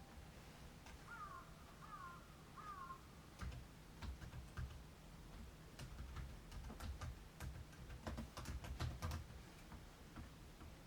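A bird gives three short, falling calls in quick succession, then comes a run of irregular sharp taps and clicks with low thumps, like pecking and knocking at a feeder.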